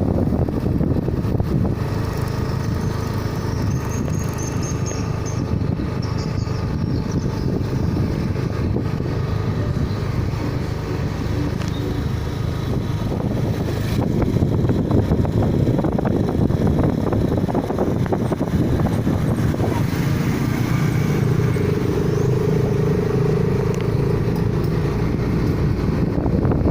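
Road vehicle engine noise: a steady low rumble with no break.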